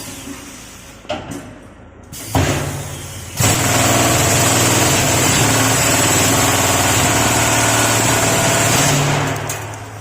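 Brake lining remover machine running. A motor hum starts about two seconds in, a loud steady hissing noise over the hum joins a second later and runs for about five seconds, then dies away near the end.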